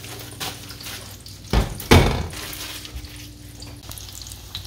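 Panko-breaded yellowtail kingfish pieces sizzling in shallow oil in a frying pan, with two loud knocks close together about a second and a half in.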